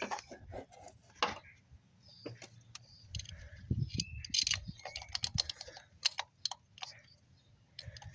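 Irregular light clicks and taps from handling the ignition coil's 10 mm hold-down bolt and a hand tool in the engine bay.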